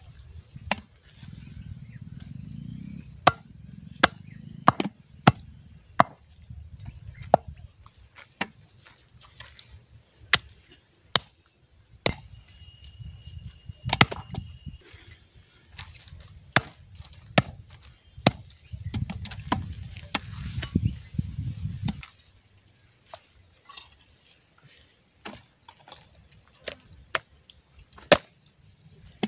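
Large machete-style chopper hacking goat meat and bone on a wooden chopping block: a long series of sharp, irregularly spaced chops.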